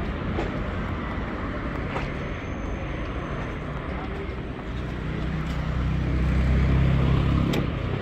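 City street traffic noise, with one vehicle's engine rumble growing louder about five seconds in as it passes, then fading near the end.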